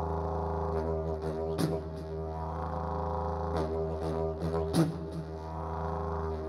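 Didgeridoo music: a steady low drone with shifting overtones, broken by two sharp accents about three seconds apart, the second the louder.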